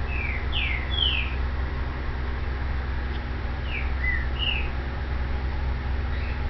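A bird chirping in short, quick, downward-sliding notes: three in the first second and a half, three more around four seconds in, and a faint one near the end. A steady low rumble runs underneath.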